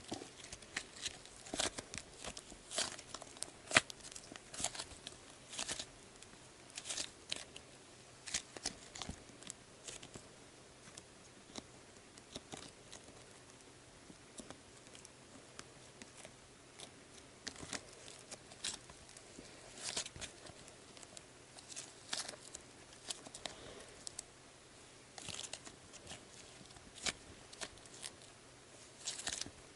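Soft Sbabam Melmito slime being stretched, folded and kneaded by hand, giving irregular sticky crackles and small pops as it pulls apart and presses together; the crackles thin out for a few seconds in the middle.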